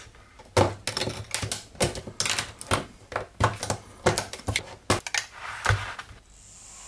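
LEGO Technic plastic beams and pieces being handled and pressed together by hand: a quick, irregular run of clicks and knocks that stops about six seconds in.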